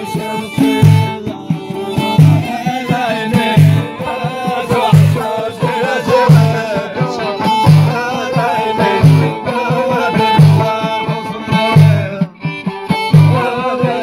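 Amazigh folk music: men singing over a steady deep frame-drum beat, with a violin and a plucked lotar lute.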